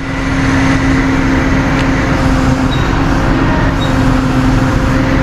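Tow truck engine running steadily with a constant droning hum while the truck pulls a car, in neutral, up onto its bed.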